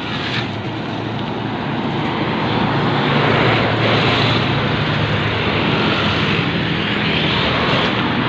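Road traffic passing close by: cars and trucks going past with a steady rush of tyre and engine noise, which grows louder about three seconds in.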